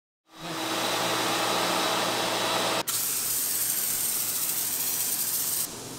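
A steady loud hiss with a low hum beneath it. After a sudden cut about three seconds in, a brighter hiss follows: the pressurised foam sprayer misting cleaner over a wheel. It stops shortly before the end.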